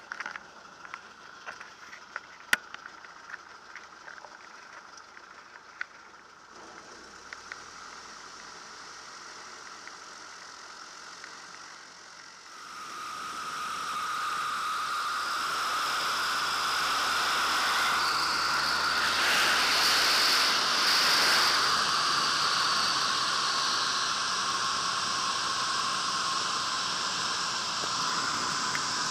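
Marquart Charger biplane's engine and rushing air heard from a camera mounted on the airframe, steady and muffled, with scattered small clicks. About twelve seconds in it turns much louder, a steady hiss of wind with a high whine over the engine in flight.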